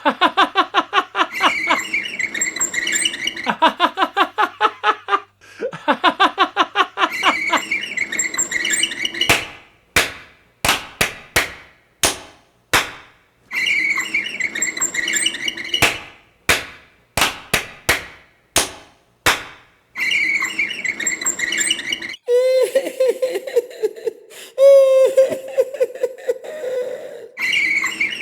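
A run of recorded human body sounds: people laughing in rhythmic bursts, then a series of separate sharp smacks, then more vocal sounds.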